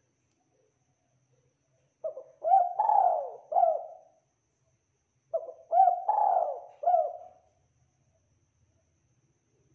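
Spotted dove (tekukur) cooing: two phrases of four notes each, the third note the longest, the first phrase about two seconds in and the second a second after it ends.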